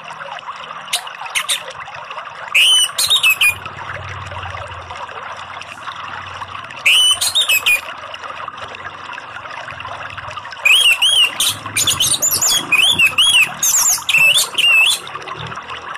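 Orange-headed thrush (anis merah) song in short bursts of varied whistled phrases: a few sharp notes about a second in, phrases near 3 and 7 seconds, then almost continuous song through the second half. Under it runs a steady rush of flowing water.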